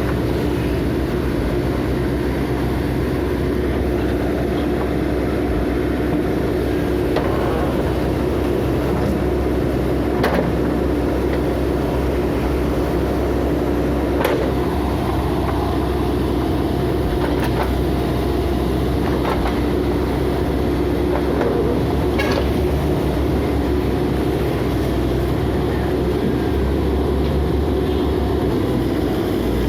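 Diesel engine of heavy demolition machinery, an excavator or bulldozer, running steadily under load. A few sharp knocks break through at scattered moments.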